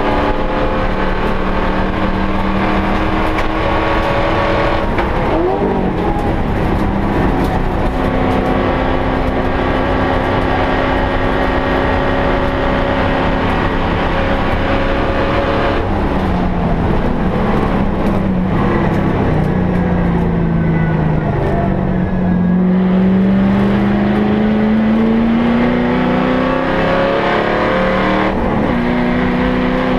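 HSV Clubsport race car's V8 engine heard from inside the cabin at racing speed, over road and wind noise. Its note holds steady, dips briefly about five seconds in, falls for several seconds past the middle as the car slows, then climbs steadily as it accelerates again and is loudest near the end.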